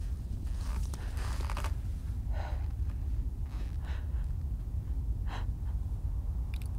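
A woman breathing hard in short gasps and heaving breaths, as with physical effort, over a steady low rumble.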